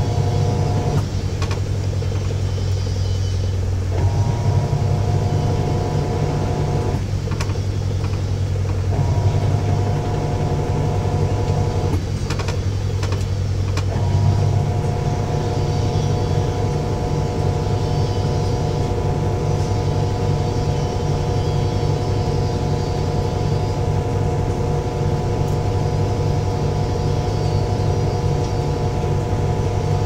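Electrolux EWT705WN washing machine spinning, heard from inside the drum: a steady low motor hum, with a higher whine that cuts in and out several times before holding steady from about halfway.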